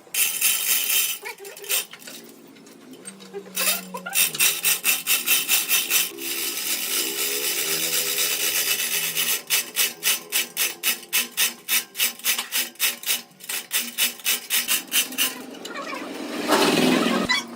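A hand tool worked back and forth on wood in quick, even strokes, about three to four a second, in two stretches with steadier rubbing between them and a louder patch near the end.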